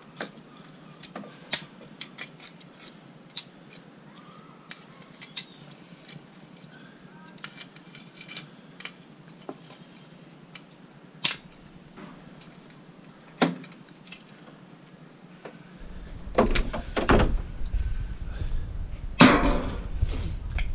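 Scrap metal being handled: scattered sharp clinks and knocks of small metal pieces, with heavier clattering over a low rumble near the end.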